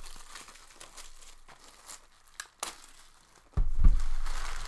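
Plastic shrink-wrap being torn and crinkled off a sealed box of hockey trading cards, with a few sharp crackles. About three and a half seconds in, a sudden louder thud and rumble of handling takes over.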